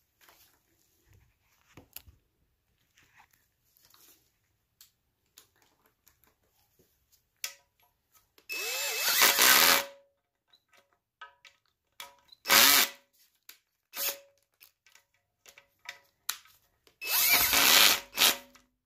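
Cordless drill-driver running in three short bursts, driving the timing cover bolts into a small block Chevy 350 block. The first run is the longest, and the motor speeds up and slows within each burst. Light clicks and taps from handling the bolts and the drill come between the runs.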